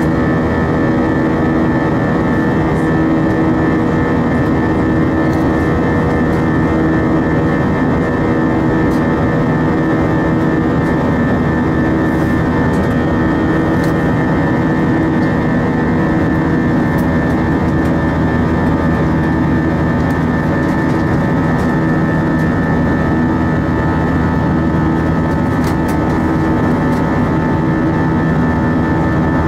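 Airbus A320 jet engines running in flight, heard from inside the passenger cabin: a steady roar with a layered hum, one low tone of which throbs slowly.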